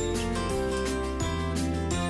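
Background music: an instrumental tune with a steady beat, its notes changing every half second or so.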